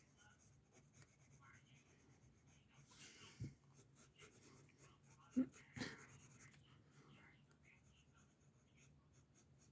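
Faint pencil strokes scratching on paper, with a couple of soft knocks near the middle.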